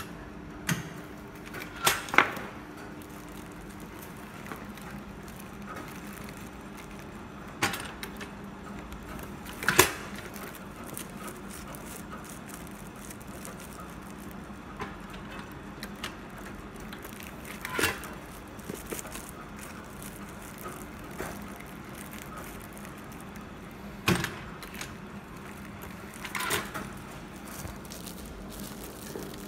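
Foot-pedal impulse sealer's hinged arm clacking down onto PVC shrink film and lifting again as the film is cut and sealed, several sharp clacks a few seconds apart, with a low steady hum underneath.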